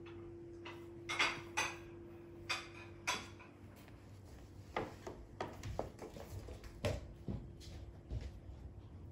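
Light irregular clicks, knocks and rustles of a Scottish Fold kitten batting and carrying a cat toy with pompom balls on a carpet, busiest a few seconds in. A faint steady hum runs underneath.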